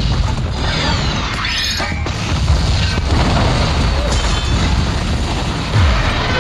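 Film sound mix of explosions going off one after another, with heavy rumbling booms and debris crashing, under loud background music. A fresh blast hits near the end.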